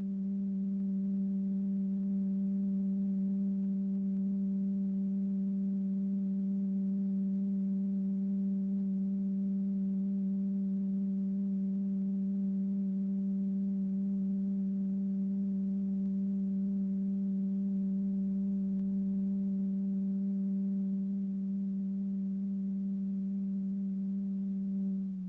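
A steady low pure tone with faint overtones, held without change: the oscillator tone driving the vibrating diaphragm that moves the lycopodium powder into its flow pattern.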